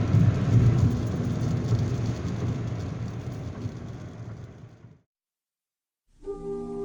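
Road and engine noise inside a 2005 Volkswagen Jetta cruising at highway speed, a steady low rumble that fades out over about five seconds. After a second of silence, music with sustained brass tones starts near the end.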